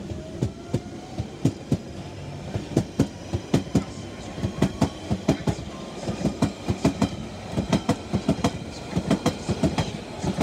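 London Underground Central line 1992 stock train pulling away past the platform. The traction motors whine and rise in pitch over the first few seconds, and the wheels clack over the rail joints in quick pairs that speed up as the train accelerates.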